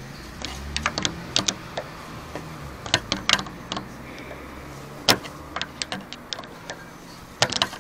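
Irregular sharp metallic clicks and taps of a thick screwdriver working the retaining nut of a Lexus RX300 power antenna loose, over a faint steady low hum.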